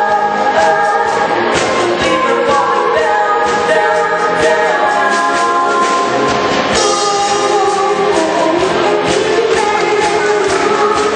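Youth choir singing a pop song in parts over a band accompaniment with a steady drum beat.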